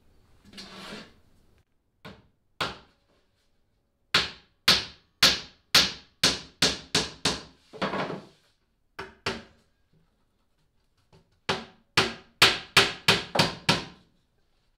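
Hammer nailing a panel onto the wooden frame of a plywood boat console: two runs of quick, sharp strikes, about three a second, with a short pause between them.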